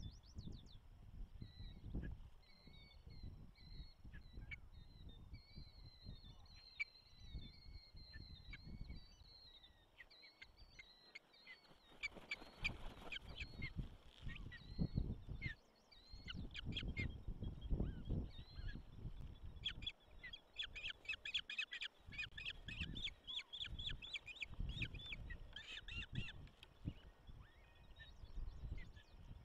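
Ospreys calling: a series of short, high whistled chirps, repeated every second or so. About halfway through, a burst of wingbeats comes as the male lands on the nest, and the calling turns into a faster, more excited run of chirps.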